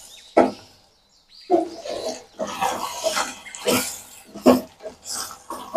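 A wooden spatula scraping and knocking against a stainless steel pot in short, irregular strokes while stirring thick beef liver curry as it fries down (kosha).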